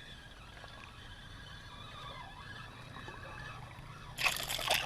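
A steady quiet hush over the water, then about four seconds in a sudden splash at the water's surface that lasts about half a second.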